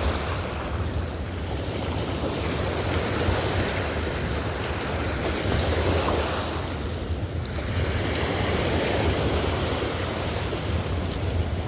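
Fast river current rushing steadily, swelling and easing every few seconds, with wind buffeting the microphone as a low rumble.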